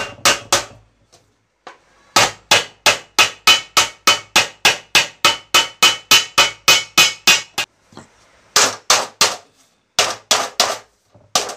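Hammer blows on thin sheet metal, forming a folded edge of a cooler tray over a wooden batten. The blows come quick and even, about three a second, in a long run, then in short groups after brief pauses, with a light ring from the sheet.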